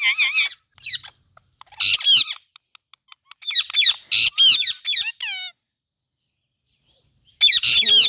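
Indian ringneck parakeet giving high-pitched squawks and chatter in short bursts, about five in all, with a quiet gap of nearly two seconds before the last.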